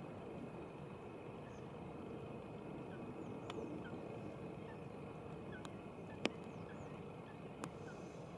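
Marsh ambience: a steady background hiss with faint, scattered bird chirps and four sharp clicks, the loudest about six seconds in.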